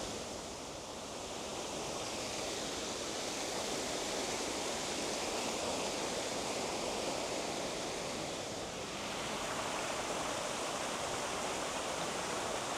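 Steady rush of water tumbling over small cascades in a woodland burn, growing a little louder about two seconds in.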